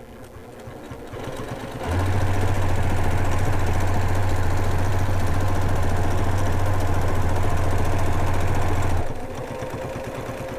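Domestic sewing machine stitching steadily as a quilt sandwich is moved by hand in free-motion quilting. It picks up speed over the first couple of seconds, runs fast and even for about seven seconds, then slows to a quieter, slower run near the end.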